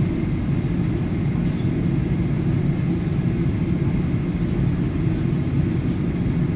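Steady jet airliner cabin noise from a window seat near the wing engine: turbofan engine and airflow, mostly low in pitch, with a faint steady whine above it.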